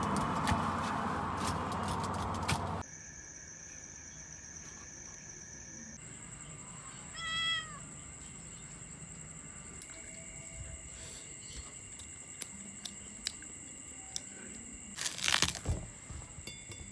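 A cat meows once, a short downward-curving meow about seven seconds in. The first few seconds hold a louder steady din, and near the end comes a loud cluster of sharp crunching clicks as a knife cuts through a watermelon's rind.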